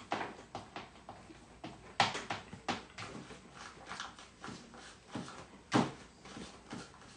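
Decoupage tissue paper rustling and crinkling in irregular short bursts as it is handled and steamed flat to take out its fold lines. The sharpest crinkles come about two seconds in and again near six seconds.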